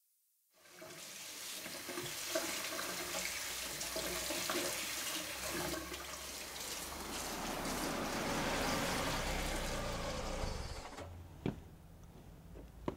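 Kitchen tap running hard into a sink, water splashing steadily for about ten seconds before it stops. Two sharp knocks follow near the end.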